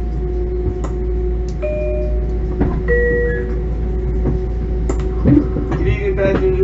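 Interior sound of an LIRR Bombardier M7 electric railcar: a steady electrical hum with scattered sharp clicks and knocks, and a few short high-pitched tones of about half a second each.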